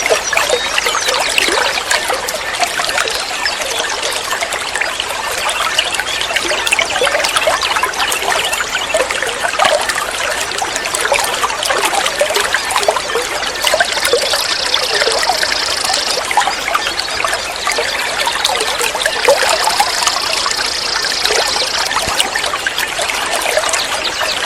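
Water trickling and babbling steadily. Twice, a high buzzing sound lasting a couple of seconds rises above the water.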